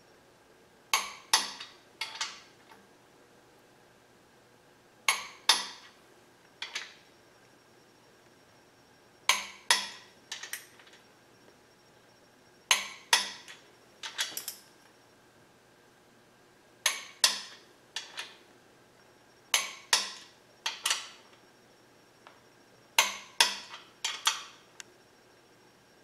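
Click-type torque wrench clicking on main bearing cap bolts. Each click signals that a bolt has reached its set torque of 50 foot-pounds. Sharp metallic clicks come in groups of two to four, one group every three to four seconds, as each bolt is pulled up in turn.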